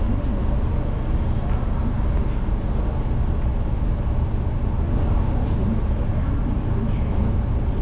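Steady low rumble inside a Singapore MRT train car as the train pulls slowly out of the station.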